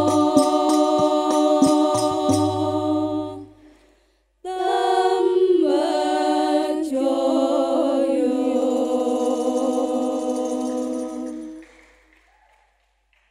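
Female voices singing Islamic sholawat in unison, with strokes of Banjari frame drums (terbang) under the singing at first. The drums stop about three seconds in, and after a brief break the voices go on unaccompanied in a slow, ornamented line that fades out near the end.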